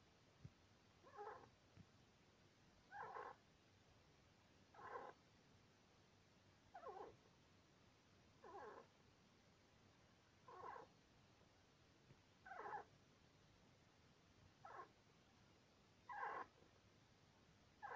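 A sleeping Syrian hamster squeaking: short, evenly spaced squeaks about every two seconds, with the rhythm of snoring. It makes them only in its sleep; a vet found its chest okay, and the owner wonders whether it is dreaming.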